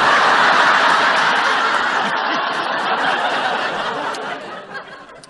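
Sitcom studio audience laughing loudly all at once, the laughter peaking at the start and slowly dying away over several seconds.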